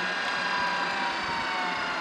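Drive motor of a tracked air-defence missile launcher whining steadily as the launcher arm traverses down, its pitch easing slightly lower.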